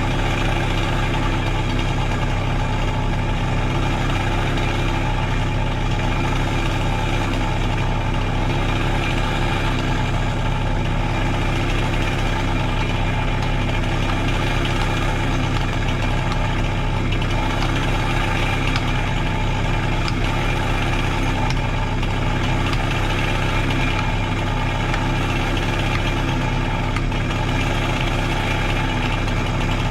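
Mini skid steer's engine idling steadily: an even, deep drone that holds the same speed and level throughout.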